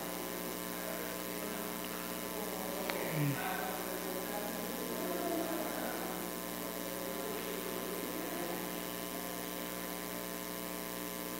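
Steady electrical hum with a faint background hiss, and a faint short noise about three seconds in.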